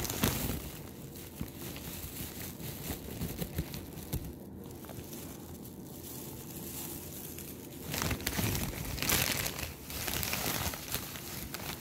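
Plastic bag of mini marshmallows crinkling and rustling as it is handled and tipped over a plastic cup, louder near the start and again for a couple of seconds about two-thirds of the way through.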